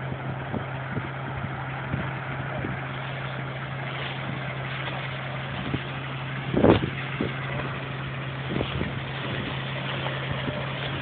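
Wheat-threshing machinery running steadily: a constant engine hum under a grainy rushing noise, with scattered knocks and one louder knock past the middle.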